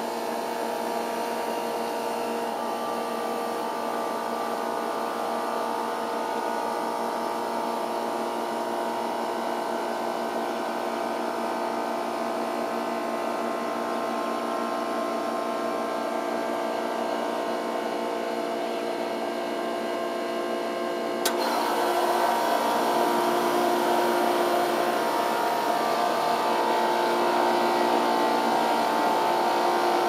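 2-ton Comfortmaker NAC024AKB1 air-conditioner condensing units with Copeland reciprocating compressors, running with a steady hum. About 21 seconds in, a sharp click comes and the hum steps up louder with new tones as another unit kicks on.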